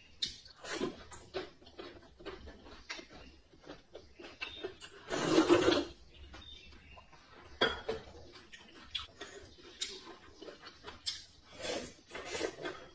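Close-miked eating: chewing, with small clicks and taps of chopsticks and bowl, and a long loud slurp of thin soup from a porcelain bowl about five seconds in.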